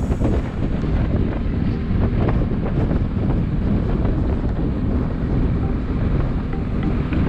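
Wind buffeting a GoPro Hero 7's microphone while moving along the road: a loud, uneven rumble that covers the traffic sounds beneath.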